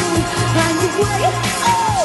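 Pop dance music played by a live band: a steady bass beat and drums under a melody line that glides up and down in pitch.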